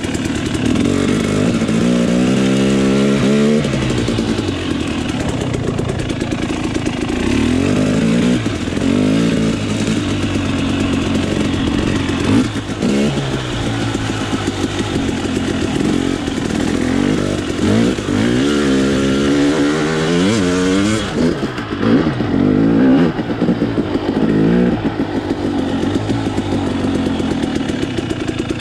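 Off-road motorcycle engine under way, its pitch repeatedly climbing and dropping as the throttle is opened and rolled off, with several quick rising sweeps through the revs.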